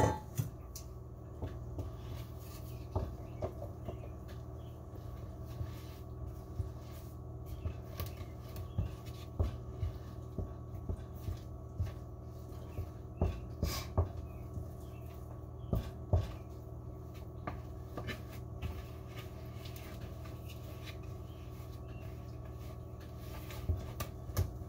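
Wooden spoon stirring stiff pizza dough in a mixing bowl, the spoon knocking and scraping against the bowl in irregular strokes, often about one a second.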